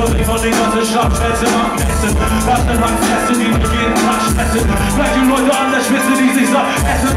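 Live hip hop: a German rapper rapping into a microphone over a loud beat with heavy bass, played through a club PA.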